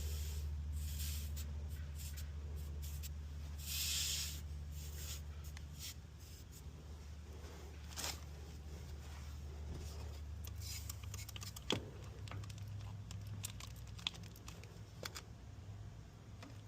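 A steady low machine hum that weakens and shifts in pitch about ten seconds in. A short hiss comes about four seconds in, with scattered clicks, taps and scrapes of hand work throughout.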